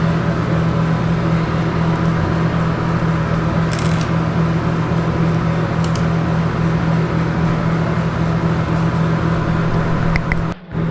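Bathroom exhaust fan running with a steady motor hum, with a couple of faint light ticks. The sound drops out briefly near the end.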